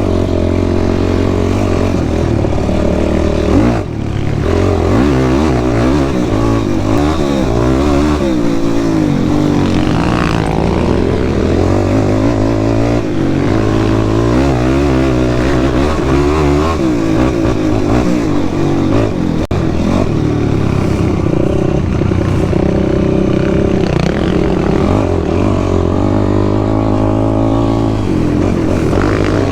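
Sport quad's engine running under way, its pitch rising and falling again and again as the throttle is worked through ruts and corners on a trail ride.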